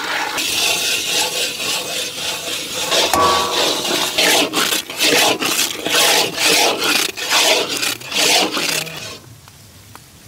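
Flat metal spatula scraping and stirring gram flour batter in hot ghee inside a large iron kadai. Steady scraping at first, then repeated strokes about twice a second from about four seconds in, stopping near the end.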